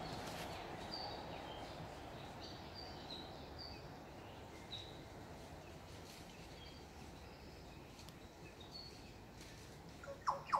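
Quiet garden ambience: faint, scattered short high chirps of small birds over a steady low background hiss. A couple of louder, sharper calls come just before the end.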